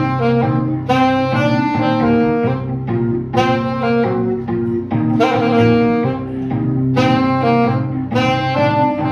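Alto saxophone playing a melody in short phrases over keyboard accompaniment with held low bass notes.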